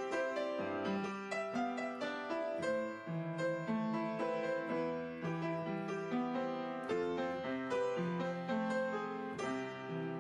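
Background piano music, a steady flow of notes played several a second.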